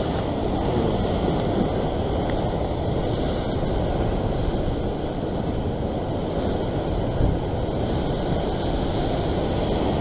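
Sea surf surging and breaking over shoreline rocks in rough water, a steady wash of noise, with wind on the microphone.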